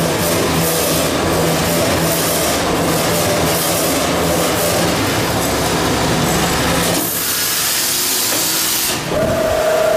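Toilet paper rewinder and band saw line running with a steady mechanical hum. About seven seconds in, a hiss lasts about two seconds, followed by a steady whine near the end.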